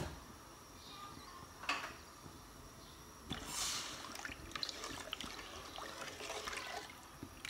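A long plastic spoon stirring tapioca pearls in sugared water in an aluminium pot, the liquid swirling and splashing, starting about three seconds in after a single knock. The stirring mixes in freshly added sugar so the pearls absorb the sweetness.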